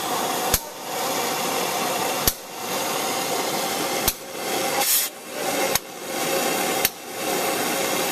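Oxy-fuel cutting torch flame hissing steadily against a seized bearing as it is heated to cut it off, with a sharp pop every second or two.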